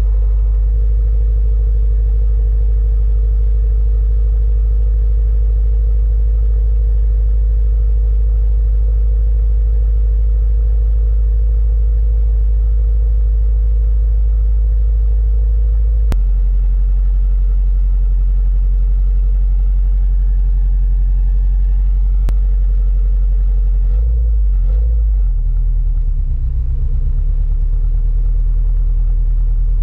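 A 2021 Subaru WRX STI's turbocharged 2.5-litre flat-four boxer engine idling through its stock quad-tip exhaust, a steady deep rumble. The note shifts slightly about halfway through, and a brief unsteady patch comes a few seconds before the end.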